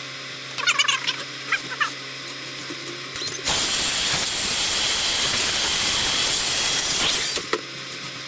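A few short, high squeaky whines in the first two seconds, then a loud, steady hiss of rushing air that starts about halfway through and cuts off after about three and a half seconds.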